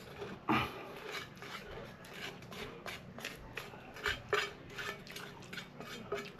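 Eating from a dish: a quick, uneven run of small clicks and clinks against the plate, mixed with the crunch of krupuk crackers, loudest about half a second in.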